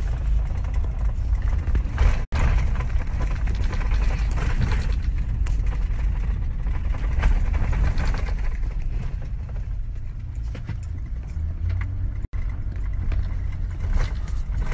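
Tow truck on the move, its engine and road noise a steady low rumble heard from inside the cab. The sound cuts out briefly twice.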